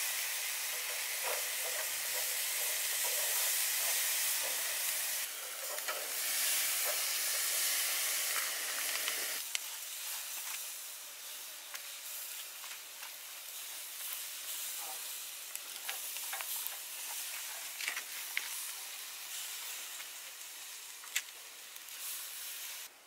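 Whole chicken sizzling on a wire grill over hot charcoal, a steady hiss of cooking fat and marinade. About nine seconds in the sizzle drops to a softer hiss with scattered pops and crackles.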